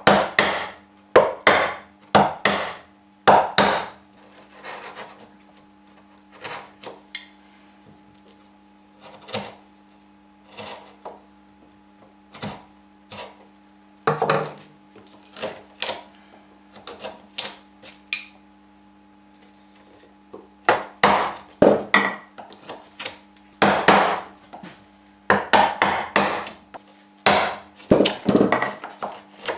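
A chisel struck with a mallet, chopping out a mortise in a wooden board. The knocks are sharp and irregular: a run of hard blows at the start, lighter and sparser knocks through the middle, and a heavy run of blows again from about two-thirds of the way in.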